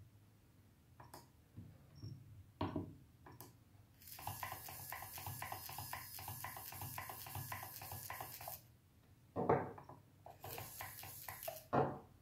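Small RC servo buzzing for about four seconds as it is driven from the transmitter, then a knock as it is set down on the wooden desk, with lighter handling sounds after.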